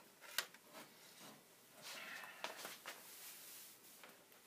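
Faint handling noises from hands working on the bridge of a model railroad turntable: a sharp click about half a second in, then light rubbing and a few small clicks about two to three seconds in.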